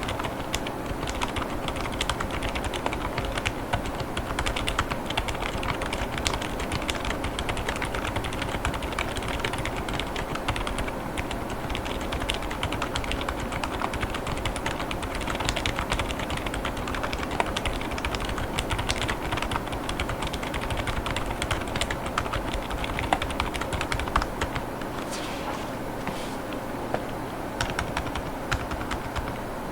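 Continuous typing on a GravaStar Mercury K1 mechanical keyboard with GamaKay Pegasus silent tactile 45gf switches and transparent polycarbonate Cherry-profile keycaps, in a K1 Lite case: a dense, steady stream of keystrokes without pauses.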